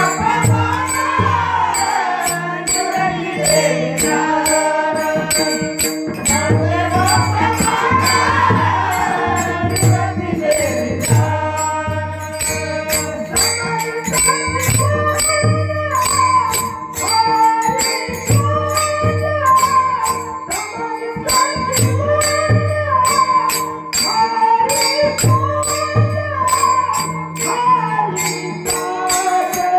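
Devotional singing: a solo voice sings a bhajan melody over a held drone, with a steady drum beat and small hand cymbals jingling in rhythm.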